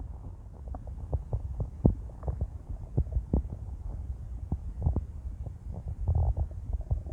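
Empty stomach growling after an 18-hour fast: a low, steady rumble with irregular short pops and gurgles, and a longer gurgle about six seconds in.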